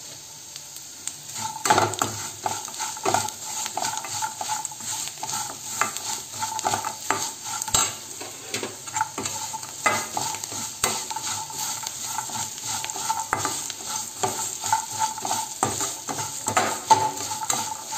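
Large metal spoon scraping and stirring peanuts, green chillies and curry leaves around a metal kadai, over a steady sizzle of frying oil. The scrapes start about a second and a half in and come irregularly.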